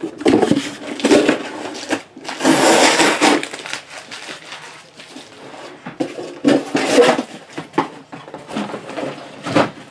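Crinkling and rustling of shrink-wrapped trading card boxes being handled, in irregular spells, the loudest a little over two seconds in and lasting about a second.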